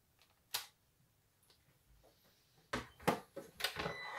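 Sharp clicks and knocks of small craft materials and tools being handled and set down on a work table: one knock about half a second in, then a quick run of four or five near the end.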